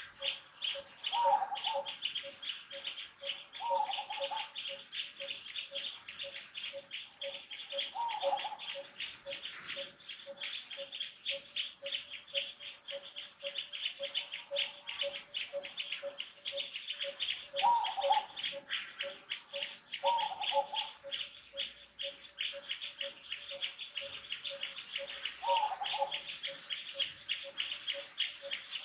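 Forest ambience of insects and birds: a steady fast insect chorus, a bird repeating one low note at an even pace throughout, and six short, slightly falling calls from another bird.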